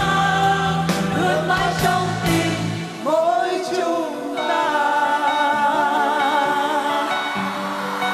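Live pop song sung by a group of voices over a full band. About three seconds in, the bass and drums drop away, leaving a held sung note and softer sustained chords.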